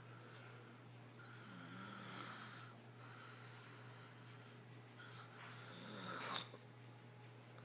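A girl snoring in her sleep: two long snoring breaths, the second growing louder and cutting off suddenly.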